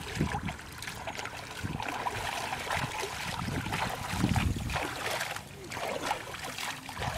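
Hands sloshing and splashing in shallow muddy water, in irregular surges, as someone gropes through the mud of a ditch for fish.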